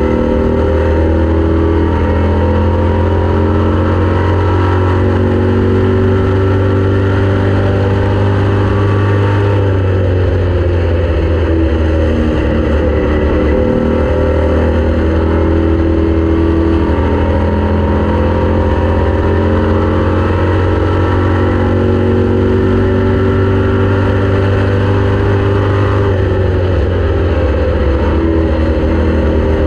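Race car engine running hard at speed, its note dipping in pitch about ten seconds in and climbing again near the end.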